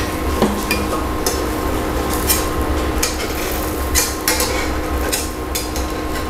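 A spatula scraping and tapping against a stainless steel frying pan as a zucchini pancake is worked loose, with about eight short scrapes and knocks spread over a few seconds, over a steady frying hiss.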